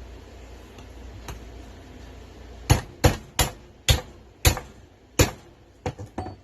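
A knife is driven through a blue crab's shell by repeated blows, chopping it into smaller bait pieces. About a third of the way in come six sharp knocks roughly half a second apart, then two lighter ones near the end.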